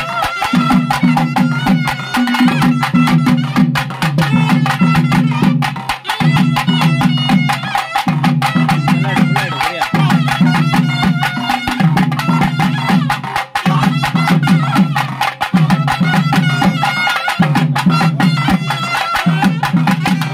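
Traditional festival music: a high, wavering melody over dense, fast drumming, with a low figure repeating about every two seconds.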